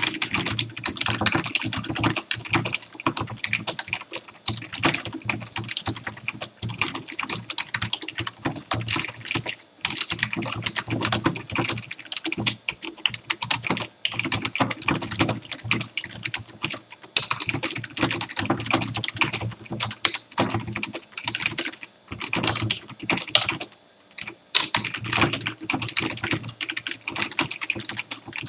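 Fast continuous typing on a computer keyboard, a dense run of key clicks broken by a few brief pauses.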